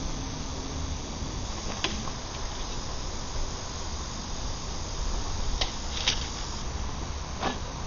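Steady low background rumble and hiss, with four short clicks spread through it.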